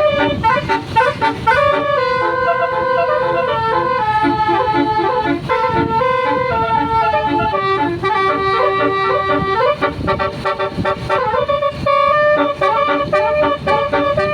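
Basuri 'telolet' multi-tone air horn on a tour bus playing a melody: held notes stepping up and down in pitch, with quick runs of short notes in between.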